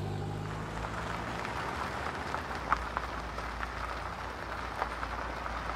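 Car tyres rolling slowly over a gritty, damp road surface, a crackling crunch with scattered clicks over a low engine rumble. An idling engine fades away in about the first second.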